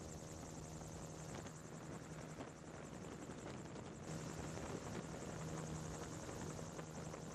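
MT-03 gyrocopter heard on board in flight: steady engine and pusher-propeller drone with a low hum under a wash of airflow noise, a little louder from about four seconds in.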